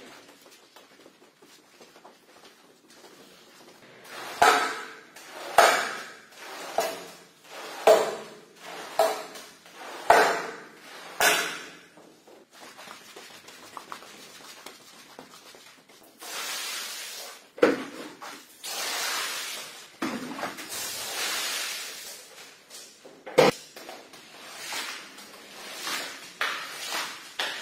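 Squeegee strokes scraping dirty foam and water off a wet shag rug, about one stroke a second. Later come a few longer swishing strokes and one sharp knock.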